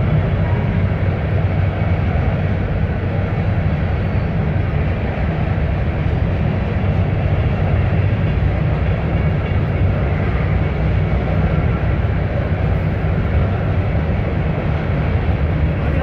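A freight train's covered hopper cars rolling over a railroad bridge: a steady low rumble of steel wheels on the rails.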